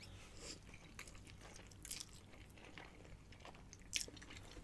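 A person chewing a mouthful of pasta: faint, soft mouth clicks, with sharper ones about two and four seconds in.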